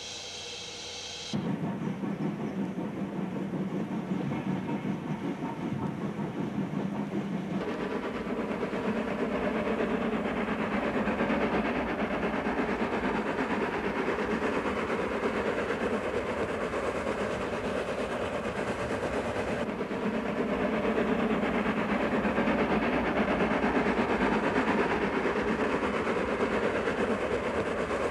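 Steam locomotive working a train, giving a dense, steady noise of exhaust and running gear. The sound jumps abruptly about a second in and changes again at about eight and twenty seconds, where the recording is cut.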